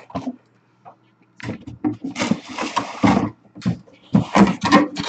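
Cardboard boxes being handled and set on a glass countertop: a few short clicks, then, from about a second and a half in, an irregular run of scraping and rustling with light knocks.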